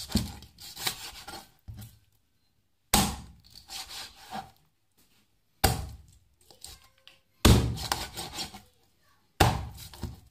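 Steel meat cleaver chopping through chicken neck and bone onto a plastic cutting board: five heavy chops about two seconds apart, with lighter knocks and scraping of the blade between them.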